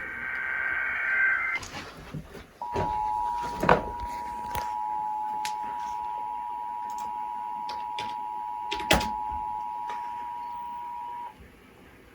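Emergency Alert System test coming through a radio: the end of a SAME data burst, a rapid warbling two-tone buzz, then about a second's pause and the steady two-tone EAS attention signal for about nine seconds, which cuts off shortly before the end. Two sharp clicks sound over the tone.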